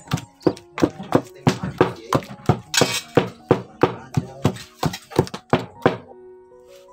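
Wooden masher pounding ripe bananas in a stainless steel bowl, about three dull thunks a second, stopping near the end. Light background music plays underneath.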